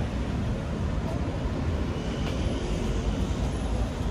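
Steady low rumble of motor vehicles, street traffic noise.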